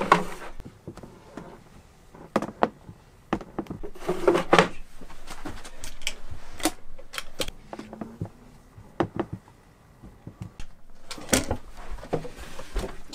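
Wooden drawers and a wooden chest being opened and rummaged through: scattered knocks and clicks with short sliding scrapes, the loudest near the start, about four seconds in and near the end.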